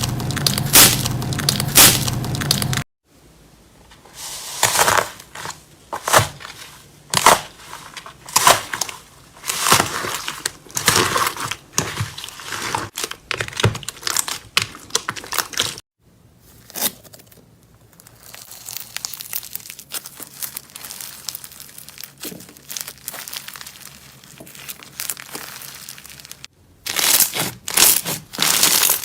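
Slime being pressed, squeezed and poked by hand, giving irregular crackling, crinkling pops in several separately cut clips.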